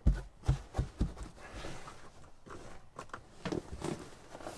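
A few soft thumps in the first second, then rustling and rubbing, as a folding mattress is handled and drawn back over the dry mat on the bed base.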